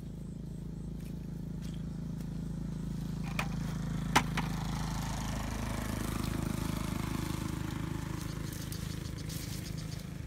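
Leaves and stems rustling as hands push through a leafy plant, over a steady low rumble. A sharp click about four seconds in.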